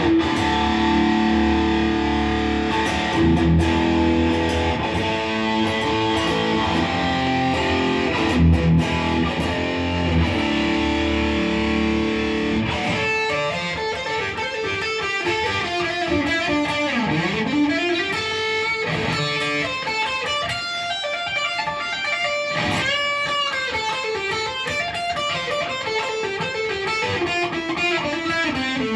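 Ibanez GIO electric guitar being played: sustained chords for roughly the first half, then fast single-note lead lines with pitch bends, including a deep swoop down and back up in pitch about halfway through.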